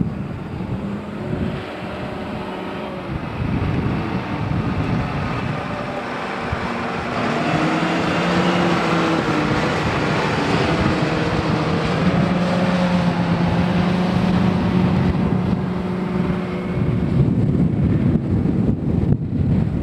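Wind buffeting the microphone, with the diesel engine of a heavy construction vehicle driving past close by: its steady engine note builds from about seven seconds in and fades away after about sixteen.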